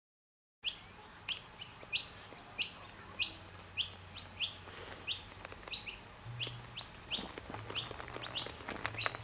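Birds chirping: a rapid, irregular series of short, sharp calls, each sliding down in pitch, starting abruptly about half a second in.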